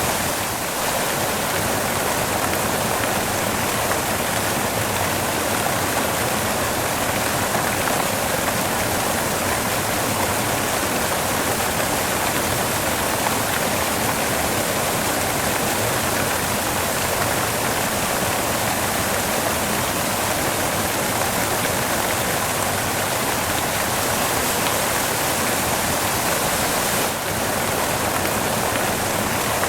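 Steady white noise: an even, unbroken hiss with no rhythm or change in pitch.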